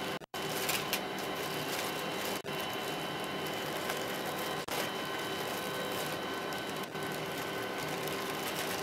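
Steady hum and hiss of the space shuttle cabin's ventilation fans and equipment, with several constant whine tones over it. The sound drops out for a split second four times, about every two seconds.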